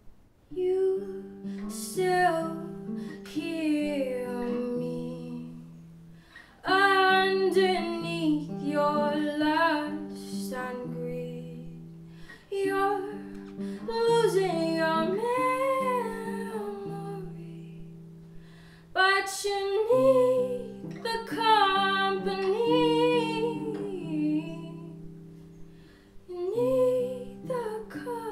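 A woman singing solo over her own acoustic guitar, in several long phrases with rising and falling pitch, the picked guitar notes ringing underneath.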